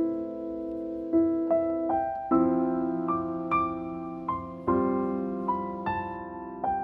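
Background music: a slow, gentle piano piece, single notes of a melody struck over soft held chords.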